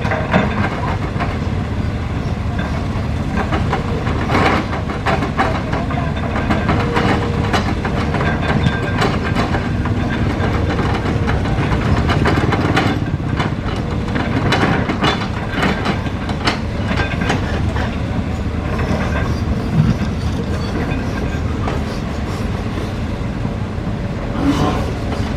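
Hydraulic excavator working earth: a steady diesel engine rumble with frequent metal clanks and clatters from the bucket and tracks.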